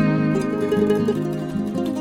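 Background music of plucked strings, acoustic guitar-like, with a succession of sustained notes.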